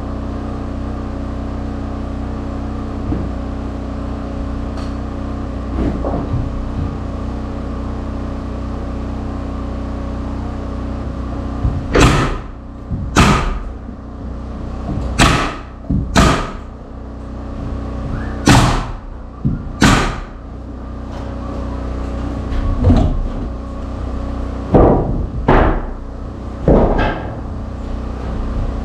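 About ten heavy knocks on wood, one to two seconds apart, starting partway through, typical of hammering during carpentry. A steady low machine hum runs under them.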